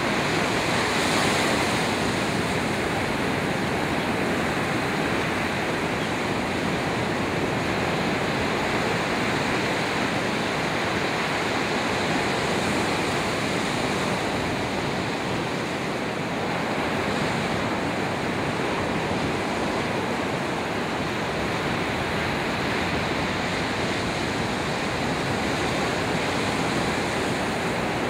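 Ocean surf breaking and washing in a steady rush of noise, with no separate events standing out.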